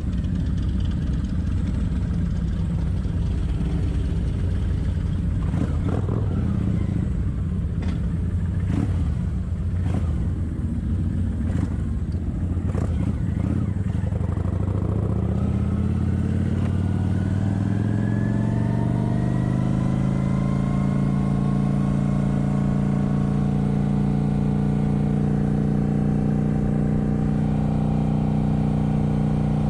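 Kawasaki Vulcan 900's V-twin engine rumbling low with a few clicks, then accelerating about halfway through, its pitch rising for several seconds before settling into a steady cruising drone.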